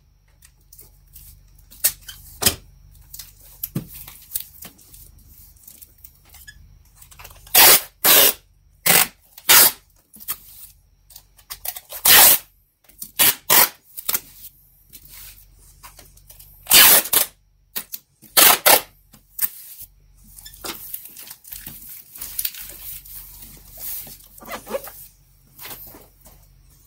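Clear packing tape pulled off the roll of a handheld tape dispenser and pressed onto a cardboard box: about a dozen loud pulls, each under a second, at uneven gaps, with quieter rustling of hands on the cardboard between.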